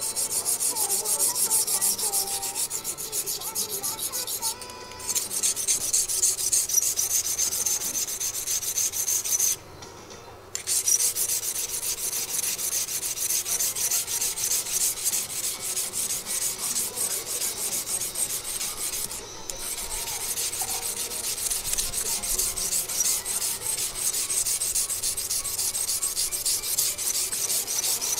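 Rusty yanagiba sashimi-knife blade scraped back and forth on a coarse wet whetstone in rapid gritty strokes, grinding off the rust. The strokes break off briefly about four and a half seconds in, for about a second around ten seconds in, and again briefly around nineteen seconds.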